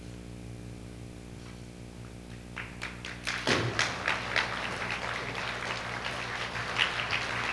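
Audience clapping that starts about two and a half seconds in and quickly swells into steady applause from a hall, over a low mains hum.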